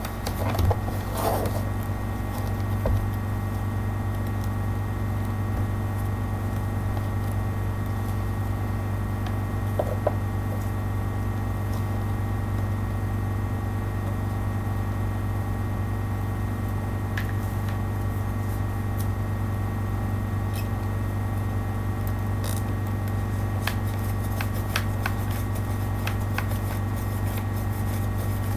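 A steady low hum runs throughout, with a few faint clicks and rustles as elastic bungee cords are handled.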